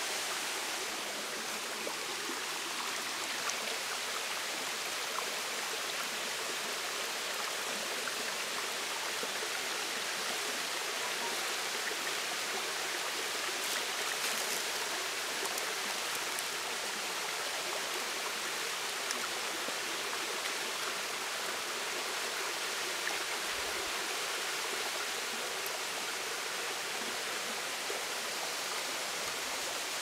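Waterfall rushing steadily: an even roar of falling water that does not change.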